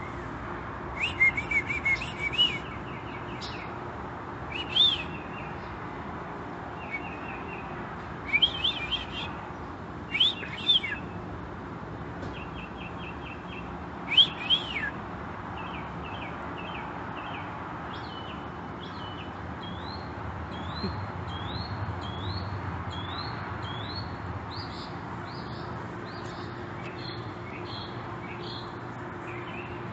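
Songbirds singing: loud bursts of chirps and rapid trills in the first half, then a long series of short rising whistled notes repeated about once a second, over a steady low background hum.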